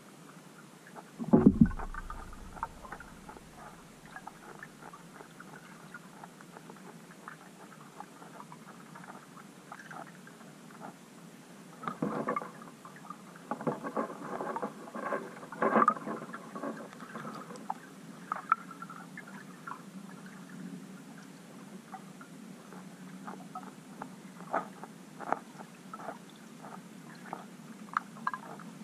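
Underwater sound of bream and tench feeding head-down on the lake bottom beside the camera: scattered clicks and crackles, thickest in clusters around twelve and sixteen seconds in. There is also one loud thump about a second and a half in.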